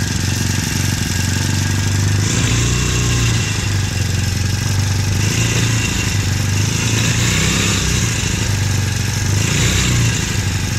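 Small 60 cc four-stroke outboard engine (144F, 4 hp) running with its propeller spinning in the air. The engine note turns harsher about two seconds in and again a couple of times later as the throttle is opened.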